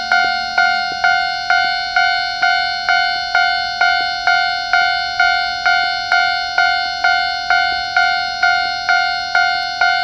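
Japanese railway level-crossing alarm bell ringing, an electronic two-tone 'kan-kan' strike repeating steadily about twice a second.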